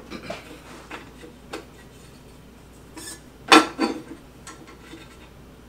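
Metal clanks and knocks from a benchtop jointer's fence being adjusted by hand, with the motor off. A few light knocks come first, then a louder double clank about three and a half seconds in.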